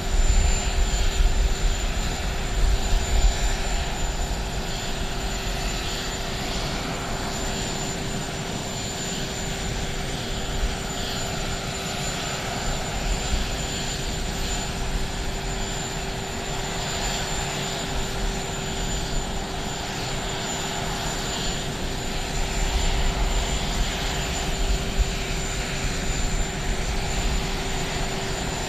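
Steady turbine whine from a parked jet airliner: a constant high thin tone and a mid-pitched hum over rushing noise, with a low rumble that swells near the start and again near the end.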